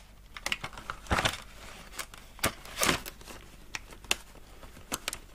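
Rigid plastic blister packaging being handled and flexed, giving irregular crinkles and sharp plastic clicks, a few of them louder snaps.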